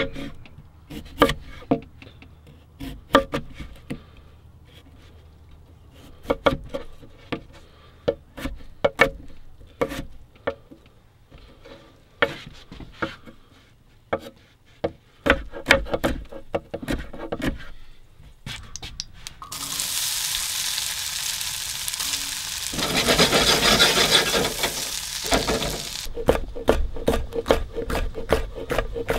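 Cooking sounds: irregular knocks and scrapes of utensils on wood and in a pan. About two-thirds of the way through, food in a hot pan sizzles loudly for several seconds, then the knocking resumes.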